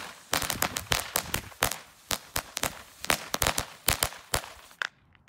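A strip of small Nico Lady Cracker firecrackers going off one after another. They make a quick, irregular run of sharp bangs that stops a little before the end.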